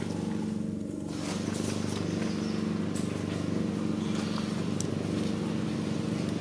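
A steady low engine hum with a fast, even pulse, like a motor running at idle, with a few faint high ticks over it.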